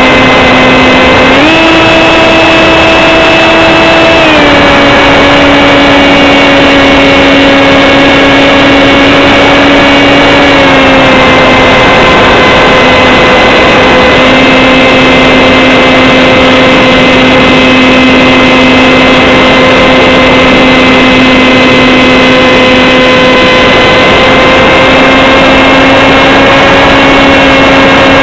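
Z-84 flying wing's electric motor and pusher propeller whining at a steady pitch over a constant rush of wind. The pitch steps up about a second and a half in, drops back about four seconds in, and settles slightly lower around eleven seconds.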